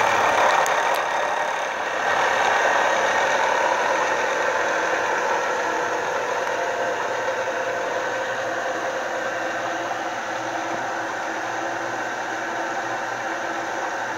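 Milling machine running steadily while a Tormach Super Fly cutter with a high-speed steel insert takes a facing cut across an aluminum block.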